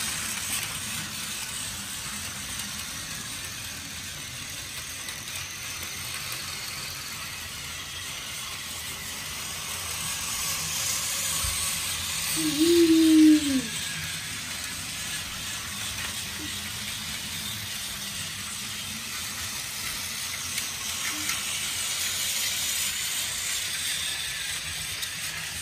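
Battery-powered toy trains running on plastic track: the steady whirring hiss of their small motors and wheels. About halfway through, a short voice-like sound rises and falls in pitch, the loudest moment.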